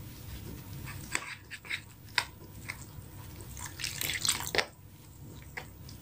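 Water poured a little at a time from a glass jug into flour in a glass bowl, with a few light clicks of a metal spoon against the glass. The pouring is loudest about four seconds in.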